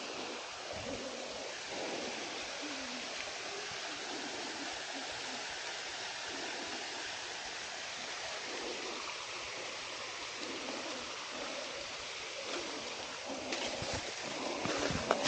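Steady rushing water, an even hiss with no rise or fall. A few knocks come near the end.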